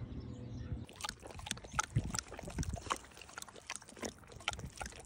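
A dog licking and lapping at a person's hand: a run of short, irregular wet smacks and clicks.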